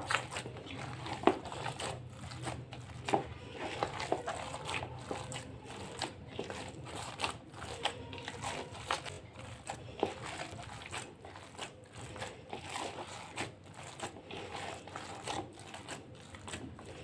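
Hand kneading and squeezing raw minced-chicken kofta mixture in a plastic bowl, giving a run of irregular wet, sticky squishes and clicks.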